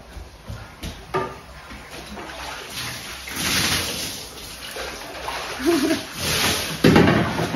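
Water poured over a person from a handheld washbasin, splashing down onto a wooden deck floor twice.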